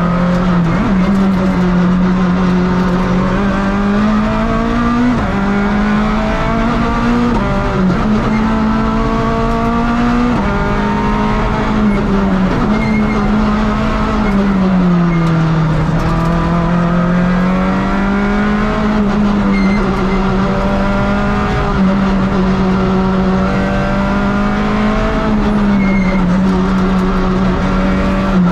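Rally car engine heard from inside the cabin, running hard at high revs, its note rising and falling as the car accelerates and slows through the bends, with a deeper dip about halfway through.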